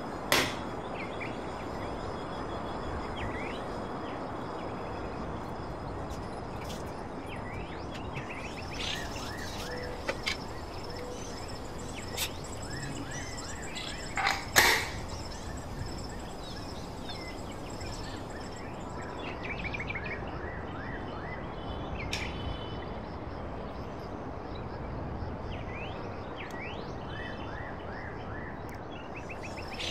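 Steady background hiss with small birds chirping now and then. A few sharp metal knocks from utensils on the aluminium pressure cooker cut through, the loudest about halfway as the cooker lid is shut.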